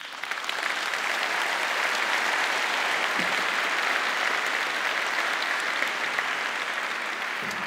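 Large seated audience applauding, starting all at once and holding steady before tapering off toward the end.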